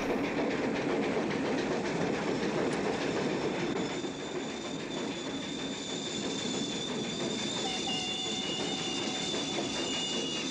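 Train rolling on the rails with a steady rumble; a high, thin wheel squeal sets in about four seconds in, and a second squeal note joins later.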